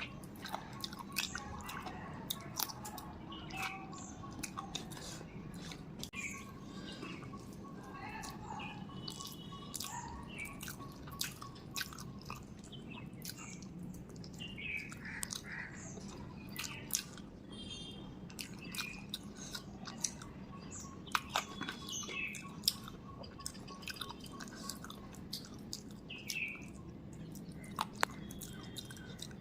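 Close-up chewing and wet mouth clicks of someone eating rice with spicy chicken curry, with many short sharp clicks. Birds chirp faintly in the background.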